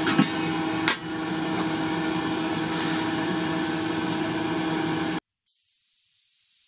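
Stir-fried vegetables sizzling and simmering in a frying pan, a steady hiss with a steady hum under it and a couple of clicks about a second in as the lid goes on. Just after five seconds it cuts off, and a falling whoosh sweeps down.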